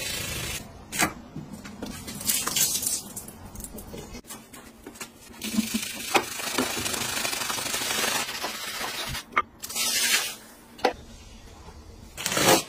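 Bristle brush scrubbing soapy fabric in scratchy strokes, with scattered clicks and knocks; near the end two louder bursts of hiss.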